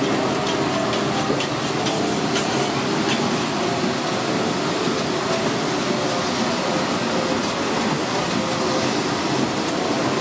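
Steady background din of a busy food-stand kitchen, with a run of light clicks in the first few seconds.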